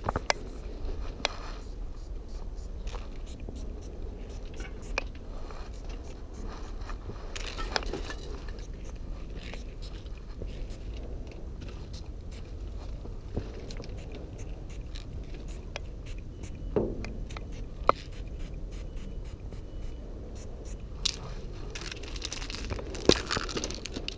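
Aerosol spray-paint cans hissing in a few bursts as paint goes onto the train's side, the longest near the end, with footsteps crunching and shifting on gravel track ballast in between.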